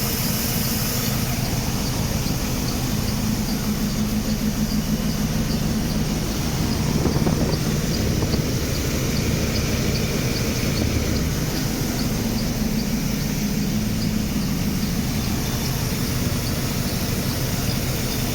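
Mercedes W124's M119 V8 engine running steadily, with a faint, regular high-pitched chirp from a pulley on the accessory drive, which the owner takes for a rusted pulley.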